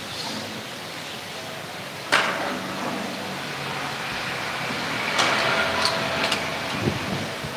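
Microphone handling noise over a steady room hiss: one sharp knock about two seconds in, then a run of small clicks and bumps near the end as the pulpit microphone on its stand is handled.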